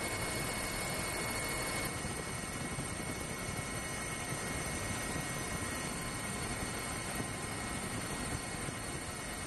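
Wildcat helicopter in flight, heard from on board: steady rotor and turbine noise with thin, steady high-pitched whines over it.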